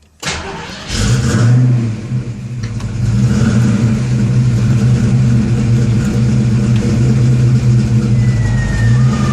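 1989 Ford Mustang running: a sharp knock just after the start, then a steady low drone from the car. Near the end a thin high whine joins in, falling slightly in pitch. This is the weird driveline noise the owner is trying to pin down.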